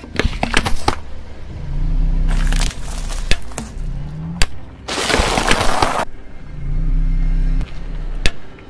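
Car tyre crushing stacks of cardboard matchboxes, giving several bursts of crunching and crackling full of sharp snaps, the longest and loudest about five seconds in. A low rumble of the car runs between the bursts.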